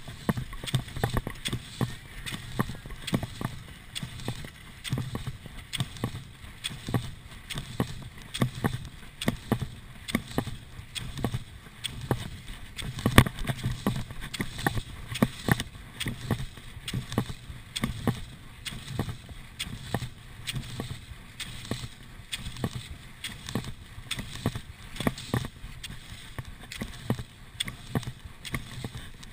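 Cross-country skier in classic tracks on groomed snow: poles planting with sharp clicks and skis scraping and gliding over the snow, in a steady stroke rhythm of about two a second.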